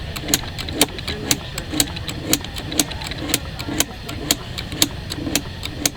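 A steel knife blade being drawn again and again through the flex-handle honing rods of a handheld Block Sharpener. Each pass gives a short scrape and a sharp tick, about two strokes a second.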